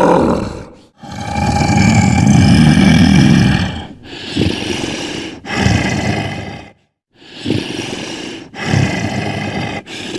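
A series of about six deep, growling roars and grunts, each one to three seconds long with short gaps between: the cartoon voice effects of the big alien villain Vulkanus.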